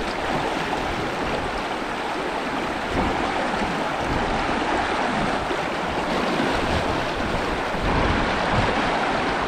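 Steady rushing of a fast-flowing river's current.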